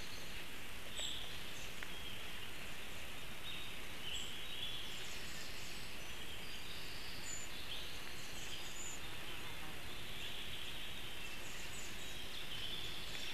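Small songbirds singing in the surrounding forest, many short phrases scattered throughout, over a steady hiss.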